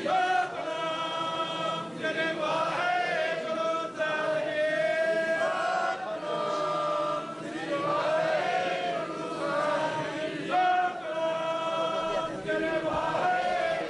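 Sikh kirtan: male voices chanting a devotional refrain together, with long held, wavering notes.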